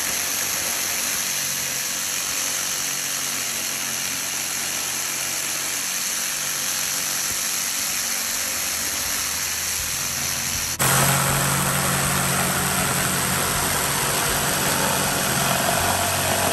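Jigsaw running and cutting through a wooden board as it saws out a rectangular latch hole, a steady buzz from the reciprocating blade. About eleven seconds in it suddenly gets louder, with a low hum coming through.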